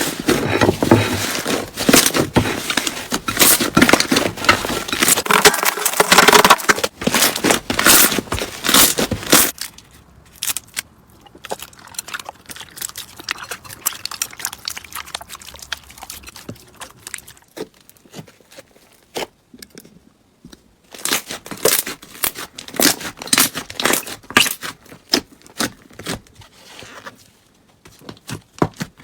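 Slime being squeezed and pressed in the hands, with dense crackling and popping clicks. It is loud for the first nine seconds or so, goes much quieter in the middle, and crackles again about three quarters of the way through.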